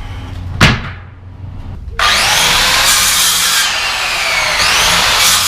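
A single knock, then about two seconds in a circular saw starts suddenly with a rising whine and cuts steadily through pallet wood, trimming off the pallet's edge to free the planks.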